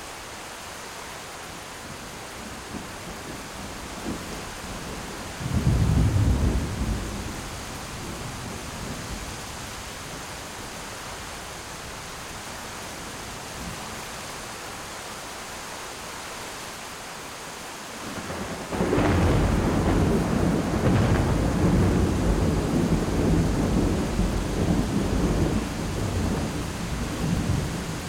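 Thunderstorm: rain falling steadily, with a short loud thunderclap about five seconds in and a long rolling peal of thunder starting a little past the middle that runs for about eight seconds before easing.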